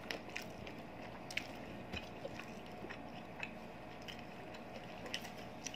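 Faint eating sounds: scattered soft clicks of chewing and mouth noises at an irregular pace.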